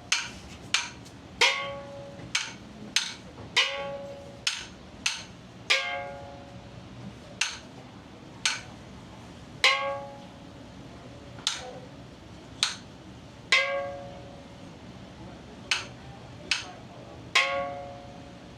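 Temple ritual percussion: a struck instrument hit in an irregular slow beat, roughly once a second, each stroke sharp and ringing briefly, some much louder than others.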